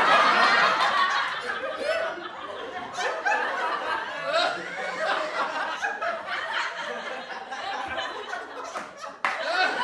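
A group of people laughing together, many voices overlapping, loudest at the start and easing off. A sudden louder burst of laughter comes in near the end.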